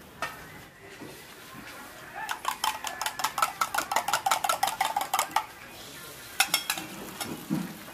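A metal spoon clinks rapidly and rhythmically against a metal vessel for about three seconds, like stirring or whisking in a steel cup. A few more clinks come about six and a half seconds in.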